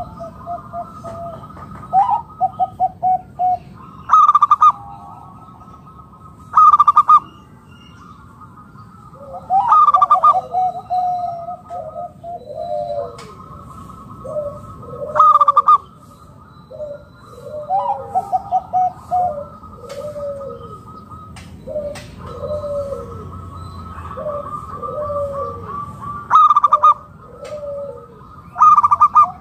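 Zebra dove (local perkutut) cooing: repeated phrases of short, rolling coo notes that come again every few seconds.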